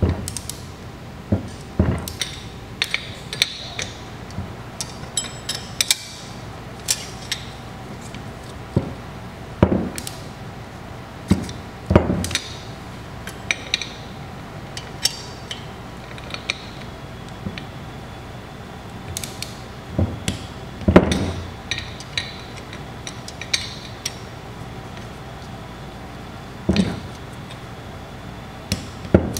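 Torque wrench and a second wrench working the cross-bolts of a bulls-eye sight flow indicator: irregular sharp metal clicks and clinks, with several louder knocks, as the bolts are brought up to 10 foot-pounds in a cross pattern.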